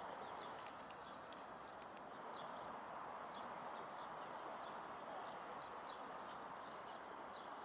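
Faint outdoor ambience: a steady hiss with scattered short, high bird chirps.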